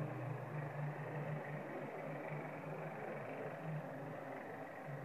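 Passenger coaches of an SS8-hauled train rolling into a station: a steady low rumble of wheels on the rails.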